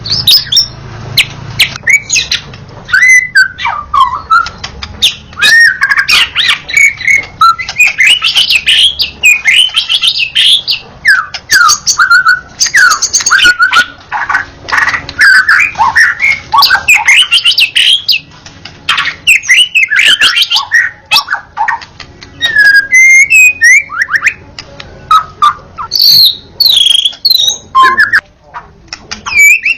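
White-rumped shama singing non-stop: a rapid, varied run of loud whistles, rising and falling glides and quick chirps, with only brief pauses.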